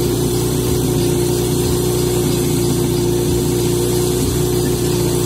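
Portable fire pump's engine running steadily at an even speed, with no change in pitch.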